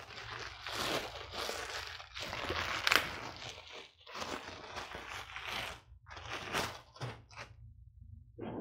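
Plastic packaging crinkling and crunching as it is torn and pulled off a new knife and its sheath, in irregular bursts with short pauses.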